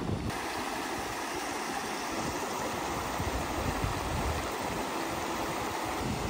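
Shallow stream running fast over rocks and stones: a steady rush of water that comes in just after the start.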